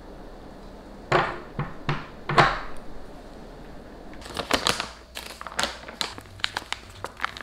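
A glazed clay pot's ceramic lid knocking three times as it is lifted off and set down. From about four seconds in, a quick run of light clicks and taps of plastic kitchenware being handled.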